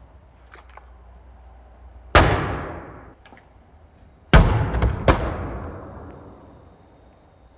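A plastic water bottle partly filled with liquid thuds down hard on a floor twice after being flipped, about two seconds in and again just after four seconds in. The second landing is followed by a smaller knock under a second later, and the bottle ends up standing upright.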